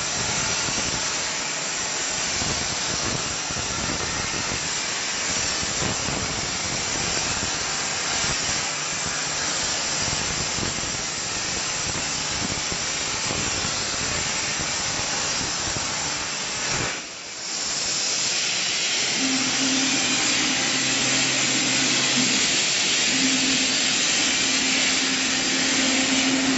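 A 105 A Hypertherm plasma torch cutting mild steel sheet, giving a harsh, crackling hiss of arc and air jet. About two-thirds of the way through the sound drops out briefly, then a steadier hiss with a low hum carries on.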